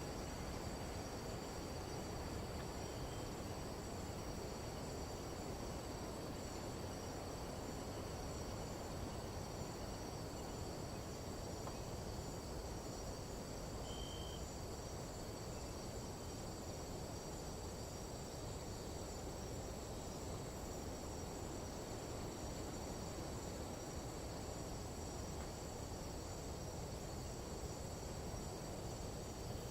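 Nighttime jungle insect chorus: a steady high-pitched trilling in several pitches at once over a low, even rumble of noise, with one short chirp about halfway through.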